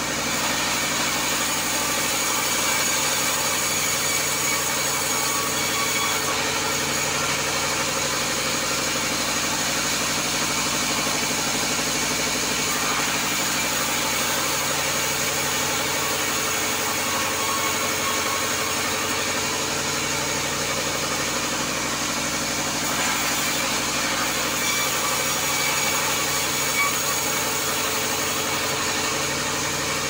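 Large sawmill band saw and its drive machinery running with a steady, unchanging drone of several steady tones.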